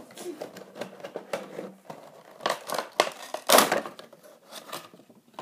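Cardboard Funko Pop box being opened and its clear plastic insert slid out: a string of rustles, crinkles and scrapes of cardboard and plastic, the loudest a little past halfway.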